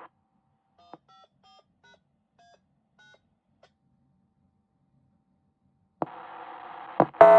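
Faint DTMF touch-tones from a handheld radio's keypad: about seven short two-tone beeps in quick succession. About six seconds in, the radio channel opens with a steady hiss, and after a click a loud steady warning tone starts just before the end.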